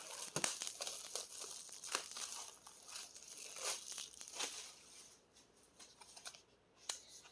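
Album packaging being handled, torn and crinkled in irregular rustling bursts with a few sharp clicks.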